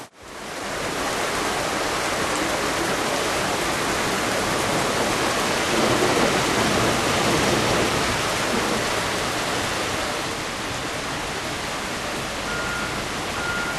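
Heavy rain pouring down in a thunderstorm, a dense steady hiss.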